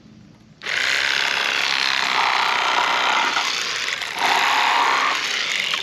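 Electric fillet knife running as it cuts the skin off a fish fillet. It starts about half a second in and runs steadily for about five seconds, its sound changing twice as the blade works along the skin, then stops near the end.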